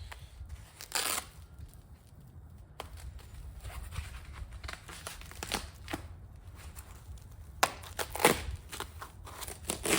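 Packaging and parts being handled during an unboxing: scattered rustling and short clicks, with louder handling noises about a second in and again around eight seconds in.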